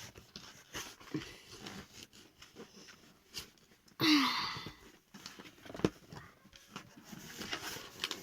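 Small clicks and rustles of a toy's cardboard and plastic packaging being handled and pulled at while a little toy dog is worked free. About four seconds in there is a brief breathy vocal sound with a falling pitch.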